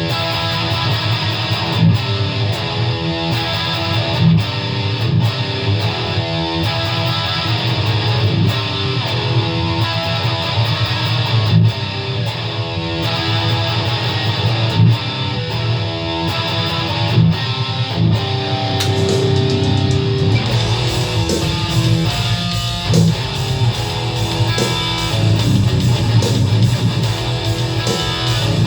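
ESP LTD EC-10 electric guitar playing a distorted metal riff through a Boss ML-2 Metalcore distortion pedal and Line 6 Catalyst amp, with a BeatBuddy drum machine keeping a steady metal beat. About twenty seconds in the low end fills out and the playing gets denser.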